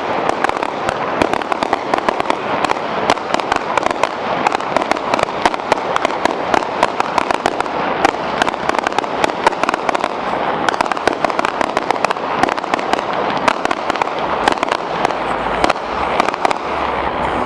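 Fireworks display going off nonstop: a dense, unbroken run of sharp bangs, pops and crackles overlapping one another.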